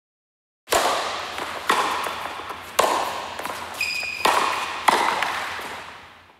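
Logo-sting sound effects: a series of five sharp, reverberant hits, each dying away slowly, with a short high ping in the middle, fading out near the end.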